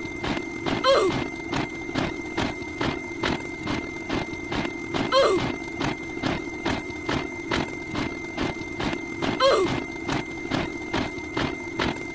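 Dense layered mix of looping sound effects played at once. It holds a steady high tone, a steady low hum, regular ticks about three to four a second, and a short sliding call that comes back every four seconds or so, three times.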